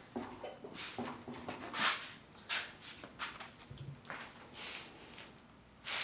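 A series of irregular short rustling and scuffing noises, about eight in all, with the loudest at about two seconds in.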